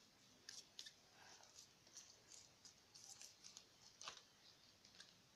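Near silence with faint, scattered small ticks and rustles.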